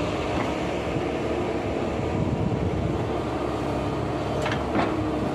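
Backhoe's diesel engine running steadily, with two sharp clicks near the end.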